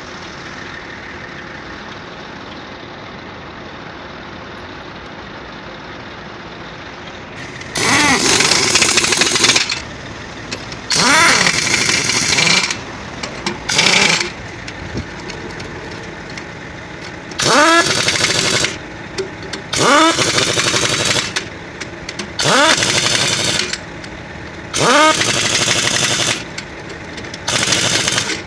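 Pneumatic impact wrench running the wheel nuts onto a truck's newly fitted wheel: about eight loud bursts of one to two seconds, each starting with a rising whine as the tool spins up and then hammering, after several seconds of steady background noise.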